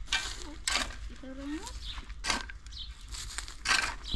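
Steel spade digging into dry, gravelly soil: several short scraping strokes as the blade is driven in and earth is shovelled aside. A voice is briefly heard about a second in.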